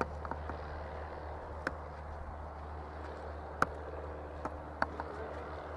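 Single-engine light aircraft's piston engine and propeller droning steadily as it climbs away after takeoff. A few sharp clicks cut through; the loudest comes a little past halfway.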